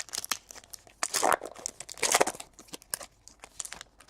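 Baseball trading cards handled and slid against one another, a run of irregular papery rustles and crinkles, loudest about one and two seconds in.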